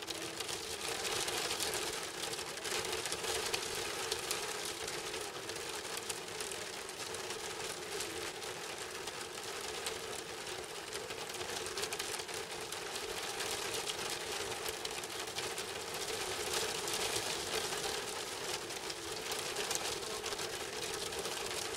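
Steady rain pattering down, a dense even hiss of drops heard from inside a wooden booth.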